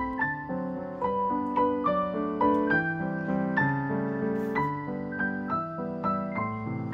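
Background piano music: a gentle melody of single notes at an even pace.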